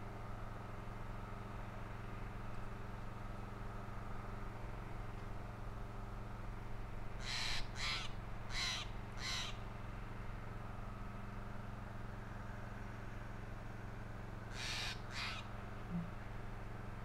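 Crow-type bird cawing: four short harsh caws about seven seconds in, then two more near the end, over a steady low hum.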